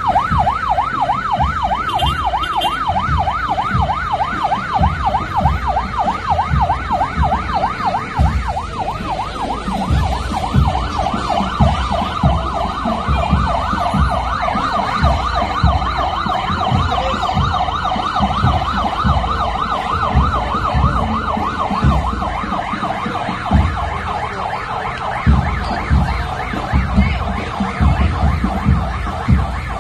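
Police vehicle siren on yelp, a fast rising-and-falling wail repeating about three times a second, growing fainter in the last third, over a run of repeated low thumps.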